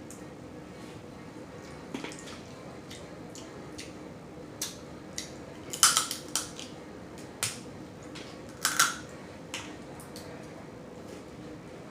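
Someone eating blue crabs close to the microphone: irregular sharp clicks and cracks of shell being broken and picked, with mouth smacking. The loudest cracks come in a quick cluster about six seconds in and again near nine seconds.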